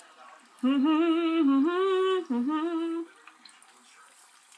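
A woman hums a short tune of three held, slightly wavering notes, starting about half a second in and stopping about three seconds in. Underneath is the faint sizzle of breaded chicken pieces deep-frying in a pot of oil.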